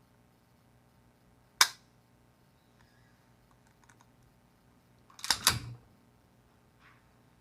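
Sharp metallic clicks from a Colt Defender .45 ACP pistol's action as its trigger pull is demonstrated. There is one click about a second and a half in, then a louder double click a little past five seconds.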